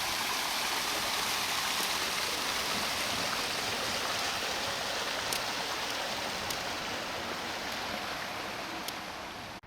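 Steady rushing of flowing water, like a stream running, with a few faint ticks.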